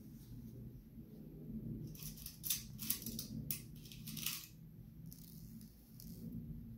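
Unbleached cotton fabric rustling in several short bursts as hands fold and turn up a trouser cuff, with a faint low hum underneath.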